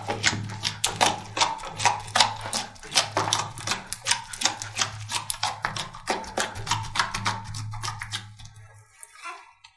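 Slime being handled, making many quick, irregular crackling clicks, over a steady low hum that stops about nine seconds in.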